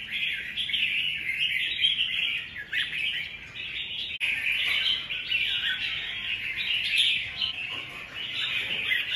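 Red-whiskered bulbuls chirping and calling in a dense, unbroken stream, with a brief dropout about four seconds in.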